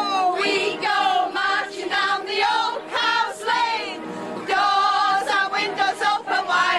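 A group of girls and women singing together, accompanied by an upright piano, with a brief softer gap about four seconds in.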